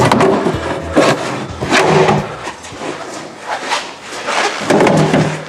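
A trim cover being worked off in a Tesla Model S frunk: irregular clicks, knocks and rustling of the part being handled.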